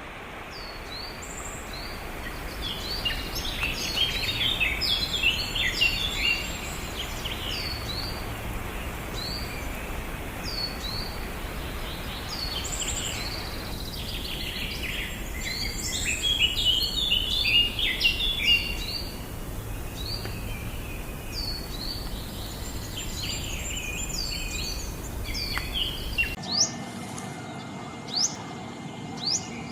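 Many wild birds chirping and calling together in quick, overlapping short notes over a steady low background rumble. Near the end the sound changes abruptly to a few sharp whistles over a steady high tone.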